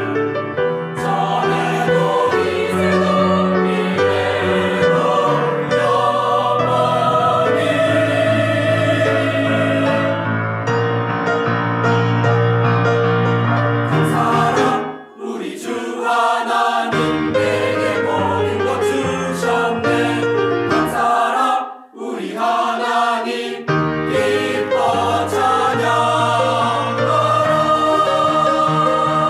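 Mixed church choir singing an anthem, with two short breaks between phrases about 15 and 22 seconds in.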